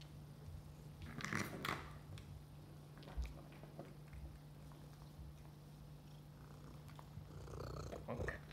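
Domestic cat purring, louder near the end as the cat comes right up to the microphone. There are two brief clattering sounds about a second and a half in.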